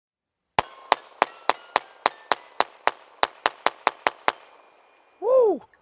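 Beretta 92FS M9A1 .22 LR semi-automatic pistol fired rapidly, about fifteen shots at roughly four a second, with steel targets ringing after the hits. The shots stop about four seconds in, and a brief loud sound falling in pitch follows near the end.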